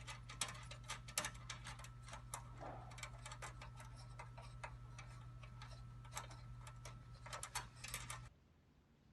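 Wing nuts being unscrewed by hand and plastic washers lifted off a range hood's metal front plate: irregular small clicks and taps over a steady low hum, stopping abruptly about eight seconds in.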